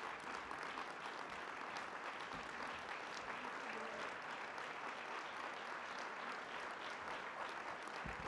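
An audience applauding steadily, the dense clatter of many hands clapping at once.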